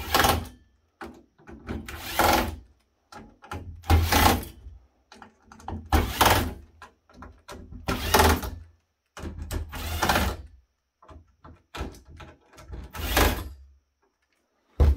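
Small cordless screwdriver running in short bursts, about seven in all, roughly every two seconds, as it backs screws out of a sheet-metal chassis one after another.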